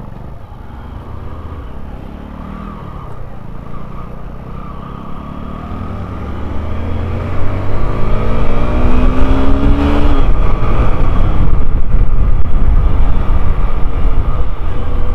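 Motorcycle riding in city traffic: the engine note climbs steadily as the bike accelerates and breaks off about two-thirds of the way through. Loud wind rush on the microphone builds in the second half as speed rises.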